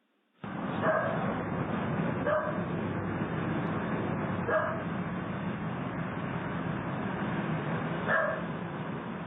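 A dog barking in single barks spaced a second or several seconds apart, over a steady hiss, heard through a doorbell camera's narrow-band microphone.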